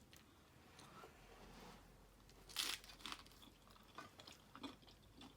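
Faint crunching and chewing of a chicken lettuce wrap, a handful of short crunches with the loudest about two and a half seconds in.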